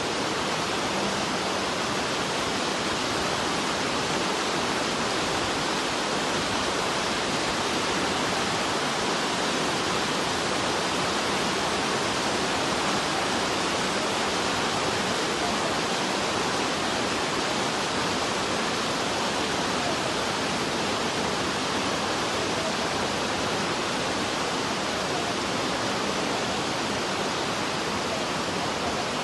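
Steady, loud rush of flowing water, like a waterfall or fast mountain stream, with no change in level.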